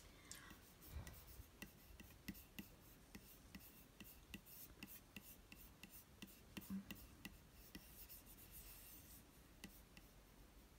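Faint, irregular clicks and finger rubbing on a MacBook Pro's Force Touch trackpad as it is swiped and clicked.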